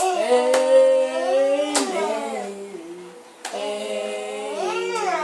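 A small group of voices singing together, holding long notes in two phrases, with a few hand claps.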